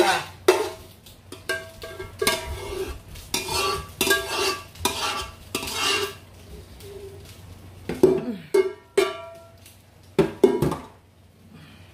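A spoon and a spatula scrape and knock inside a metal saucepan held tilted as its sauce is scraped out. Some knocks leave the pot ringing briefly. The knocks come unevenly, loudest a little past the middle.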